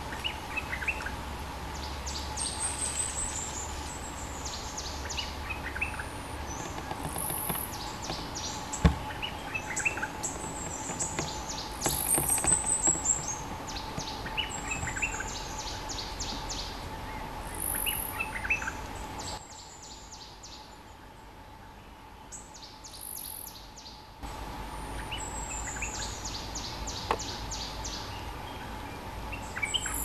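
Stripe-throated bulbul singing: short bubbly phrases repeated every few seconds, each a quick run of high notes stepping downward. A steady faint hum lies underneath.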